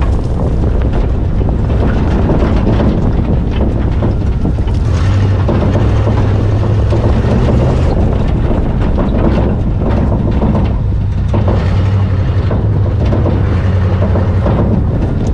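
Truck engine and exhaust running under load while driving over rough ground, the low engine note swelling and easing, with wind on the microphone.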